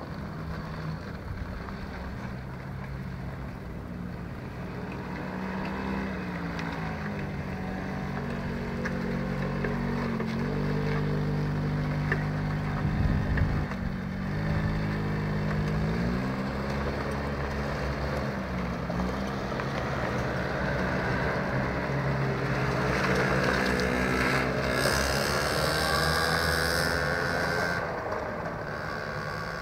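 Small children's quad bike engines running around a dirt track, their pitch rising and falling as the riders speed up and slow for the bends. One quad passes close about 12 seconds in, and another around 24 seconds in, each louder and higher as it goes by.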